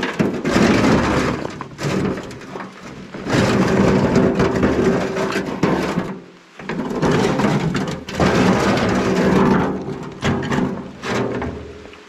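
Rocks sliding and clattering out of a tipped wheelbarrow onto a rock pile, in several loud bouts of rumbling and knocking with short pauses between them as the load shifts out.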